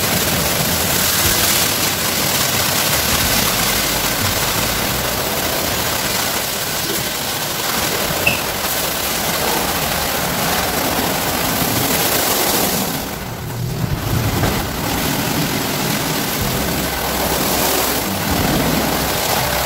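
WashTec automatic rollover car wash running: rotating brushes scrubbing the car amid water spray and machine hum, a steady loud wash. The hiss drops away briefly about two-thirds of the way through, then returns.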